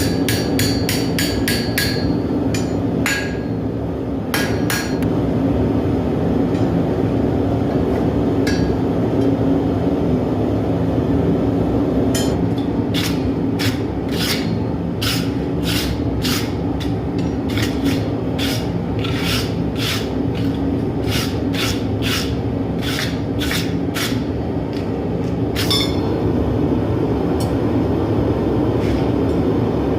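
Blacksmith's hammer striking steel on an anvil: a quick flurry of ringing blows at the start, a pause, then a long steady run of about two blows a second through the middle. A steady rushing noise runs underneath.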